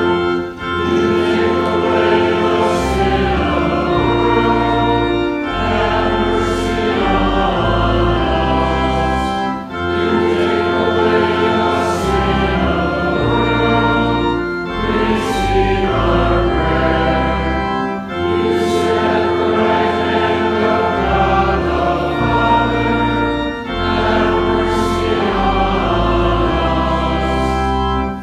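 Choir singing a hymn with organ accompaniment, held bass notes under the voices, in phrases separated by brief breaks.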